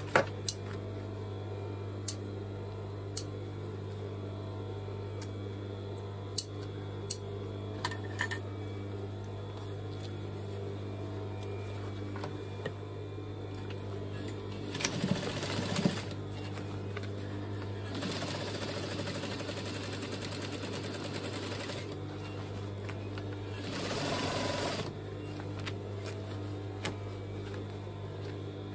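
Juki DDL-8700 industrial lockstitch sewing machine with its motor humming steadily, and short runs of stitching through denim a little past the middle. A few sharp clicks come in the first several seconds.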